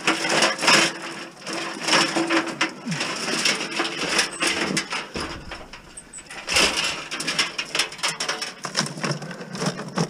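Tangled scrap electrical wire and appliance cords being pulled out of a bucket and dropped into a plastic crate: a rustling clatter of many small knocks and clicks, with a few louder bursts.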